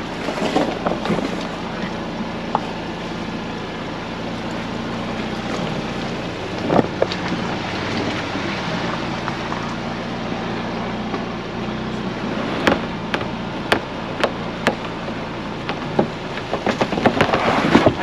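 2022 Ford Bronco Badlands crawling along a rough dirt trail, its engine holding a steady low hum over tyre and trail noise. Sharp clicks and knocks come in the second half, thickest near the end.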